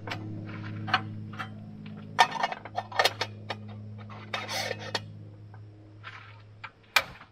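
Clicks, clinks and knocks of a small teapot and a portable butane stove being handled, the loudest near the end, over a steady low hum that stops shortly before.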